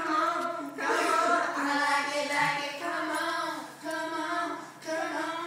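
Female voices singing a song in phrases with short breaks between them.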